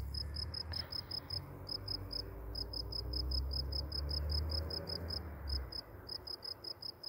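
A cricket chirping in the grass: short, high-pitched pulses repeating about seven times a second, with brief gaps now and then. Underneath, a low rumble swells through the middle and dies away a little past five seconds in.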